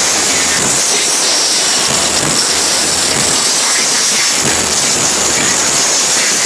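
Live rock-and-rap band on a loud festival PA, so loud that the phone's microphone overloads and smears it into a dense, hissy roar, with low bass notes pulsing underneath.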